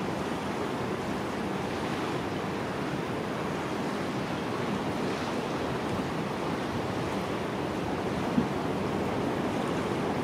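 Steady rushing noise of surf from waves breaking along a coral reef offshore, with one brief sharp click about eight seconds in.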